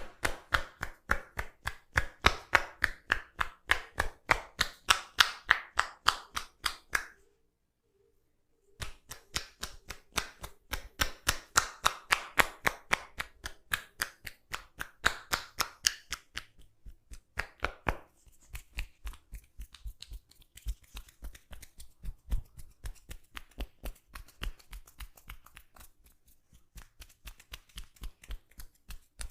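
Hands tapping and chopping in a quick, even massage rhythm of several strokes a second, with a clapping sound. The strokes stop for nearly two seconds about seven seconds in, then resume and grow softer after about eighteen seconds.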